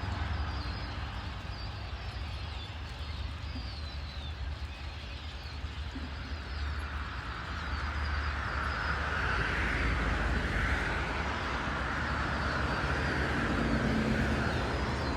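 Small birds chirping in short, high, repeated calls over a steady low rumble and hiss that grows louder about eight seconds in.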